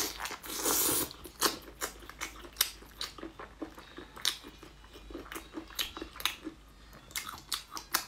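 Close-miked wet chewing and lip smacks as a person eats tender braised lamb ribs, with the meat torn from the bone by hand. The sound is a run of irregular short smacks, with a brief hiss about half a second in.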